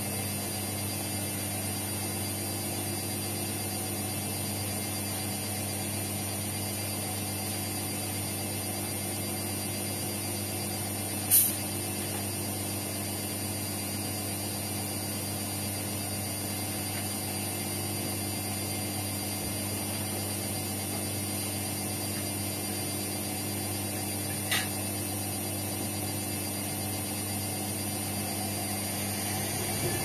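Indesit washing machine running with a steady low hum, and two short sharp clicks: one about a third of the way through, another about four-fifths in.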